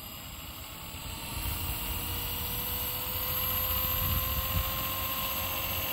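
Blade 230S V2 RC helicopter spooling up on the ground for takeoff: a steady motor-and-rotor whine that slowly rises in pitch and grows louder as the throttle comes up, over a low rushing noise.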